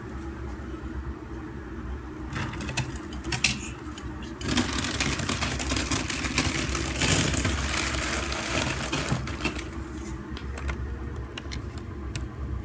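Handling noise: a few knocks and clicks a couple of seconds in, then about five seconds of rustling and clattering, over a steady low hum.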